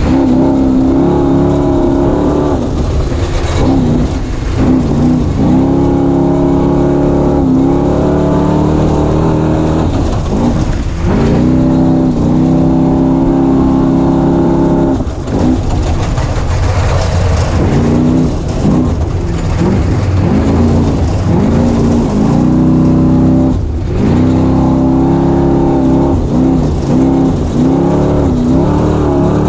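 Off-road race vehicle's engine running hard, heard up close. Its pitch climbs and drops sharply again and again as it accelerates and lets off.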